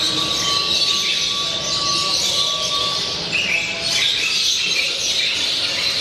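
A dense, continuous chorus of many caged birds chirping and calling at once, with a thin steady tone held through the first three seconds or so.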